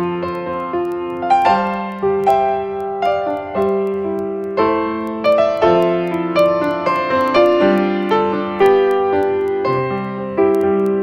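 Background music: a piano playing slowly, each note or chord struck and left to fade before the next, about one every half second to a second.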